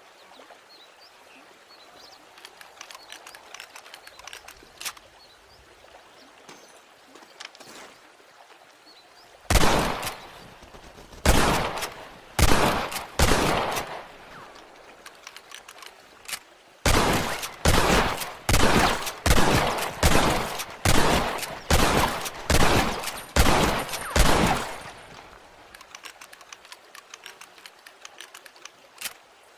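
Winchester rifle gunshots. A few scattered shots come first, then a rapid string of about a dozen at roughly two a second, each sharp crack trailing off quickly.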